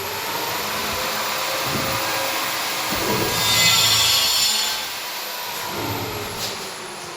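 A small electric motor whirs up to speed at the start and runs with a steady rushing hiss, briefly louder in the middle, then winds down over the last couple of seconds.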